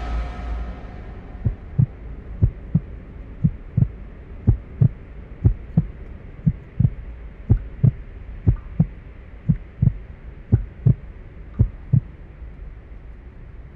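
Heartbeat sound effect: paired low thumps, lub-dub, about once a second over a low hum, starting about a second and a half in.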